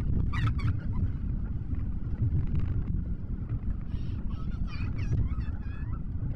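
Steady low rumble of a car driving on rain-wet roads, with brief faint higher sounds about half a second in and again from about four to six seconds in.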